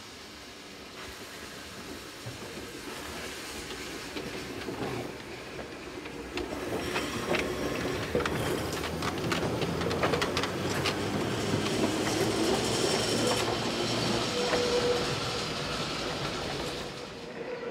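Vintage electric tram and its trailer car approaching and passing close by, wheels rolling and clicking over rail joints and points, growing louder as the cars go past. A brief wheel squeal comes near the end, and the sound falls away just before the end.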